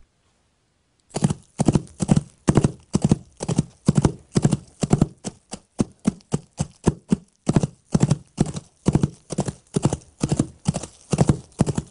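Foley horse hoofbeats struck with hoof props: a steady galloping rhythm of clustered hoof strikes, about two clusters a second, starting after about a second of silence.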